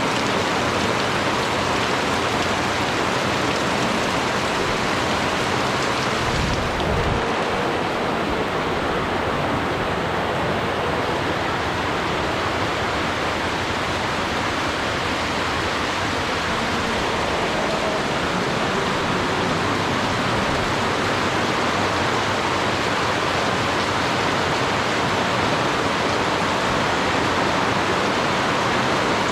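Steady heavy rain falling, a dense, even hiss of downpour, with a short low rumble about six seconds in.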